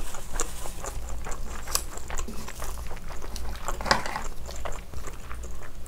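Close-miked wet chewing and mouth sounds of a person eating spicy steamed scallop, with scattered small clicks and squelches.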